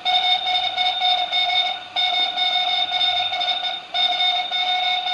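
Morse code played as an electronic beeping tone: three long tones of about two seconds each, separated by brief gaps.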